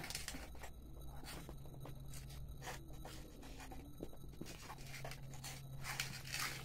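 Faint scraping and light clicks of small round sweets shifting against steel plates as children eat straight from them with their mouths, over a low steady hum.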